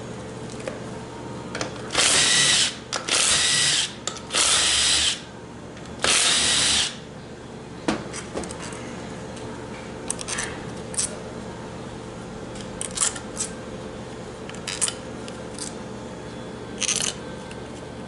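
Power drill spinning in four bursts of about a second each, backing out the bolts of the old transmission control module, followed by a few short, quieter clicks and brief whirs.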